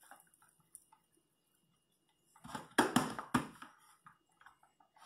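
A short burst of knocks and clatter of cookware, about two and a half seconds in, as cut pork belly for torresmo is tipped into the cooking pot. The loudest knock comes a little after three seconds in.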